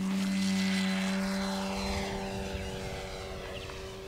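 Electric brushless motor and 17x12-inch propeller of a scale RV-4 model airplane, a steady-pitched propeller drone as the model lifts off and climbs away. It is loudest about half a second in, with a whoosh falling in pitch as it passes, then fades gradually.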